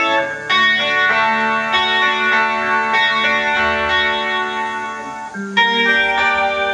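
Instrumental music: a melody played on an electric guitar with effects, sustained notes changing about half a second in and again near the end.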